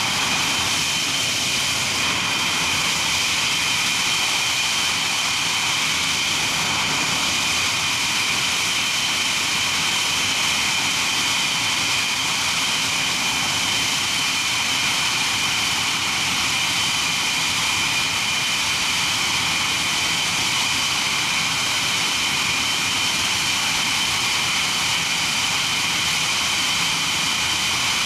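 English Electric Lightning's twin Rolls-Royce Avon turbojets running at a steady idle: a loud, unchanging high whine over a rushing roar.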